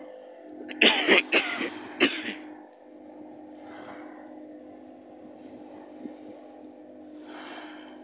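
A person coughing several times in quick succession about a second in, with a couple of fainter coughs later, over a steady low hum.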